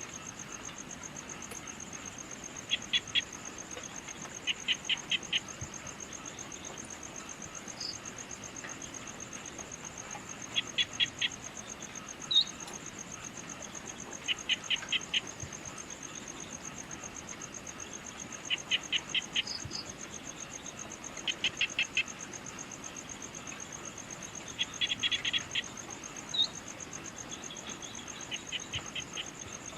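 Crickets keeping up a steady high trill, with a bird calling over it every few seconds in short runs of three to five quick notes and the odd single chirp.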